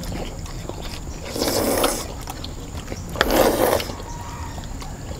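Two loud slurps of noodles in gravy, each under a second long, about two seconds apart.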